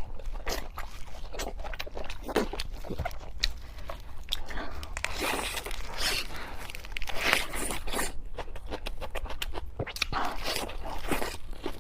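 Close-miked chewing and crunching of sweet and spicy pork with green vegetables: many sharp wet mouth clicks and short crisp bites, in an irregular run with no pauses.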